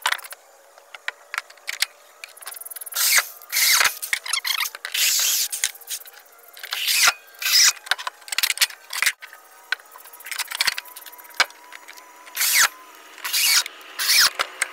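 Power drill driving screws into wooden deck boards in repeated short bursts, with a few sharp knocks of boards being set in place between them.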